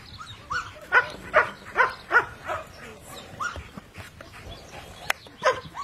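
Long-haired German Shepherd giving a rapid series of short, rising yelps, several a second and loudest in the first two seconds or so, then more scattered. A single sharp click comes near the end.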